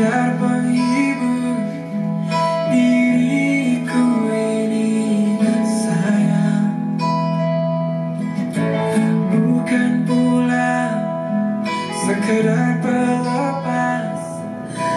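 Acoustic guitar music played back through a Simbadda CST 838N portable outdoor speaker.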